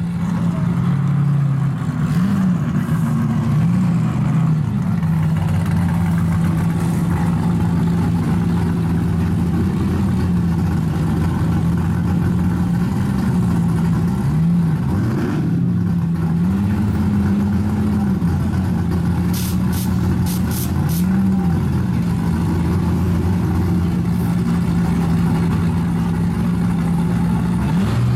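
Car engine running at a steady speed, revved briefly several times with the pitch rising and falling back each time. A few faint clicks come about two-thirds of the way through.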